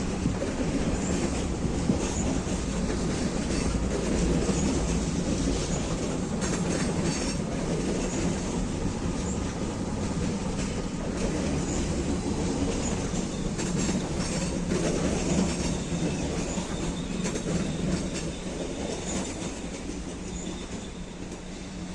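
A train rolling through a station, its wheels clicking over rail joints and points with a steady rumble, fading away over the last few seconds.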